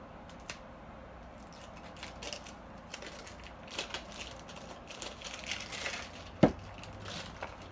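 Plastic wrapping of an L.O.L. Surprise Glam Glitter ball crinkling and clicking as it is peeled and worked open by hand, with one sharp click about six and a half seconds in.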